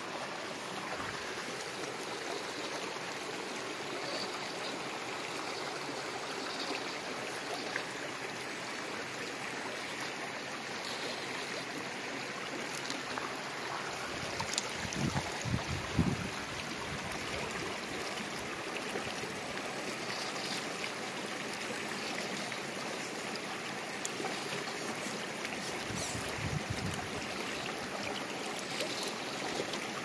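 Steady rush of flowing creek water, with a few brief low rumbles about halfway through and again near the end.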